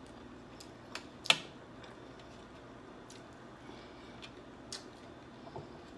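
Close-up mouth sounds of someone chewing a spoonful of sauced rice: scattered soft wet clicks and smacks, with one sharper click a little over a second in.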